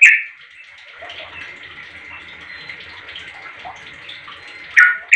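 Yellow-vented bulbul singing: a loud, sharp note right at the start and two more near the end, with quieter twittering in between.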